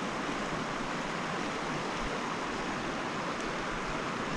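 Steady rush of a running creek, an even hiss of flowing water with no distinct splashes.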